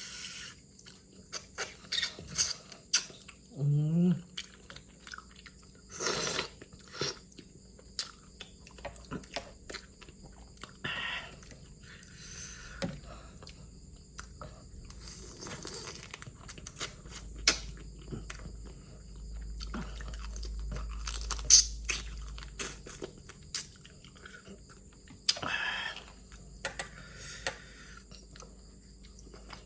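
Close-up eating sounds: shellfish sucked from the shell and chewed, with wet slurps, smacks and clicks coming in irregular bursts.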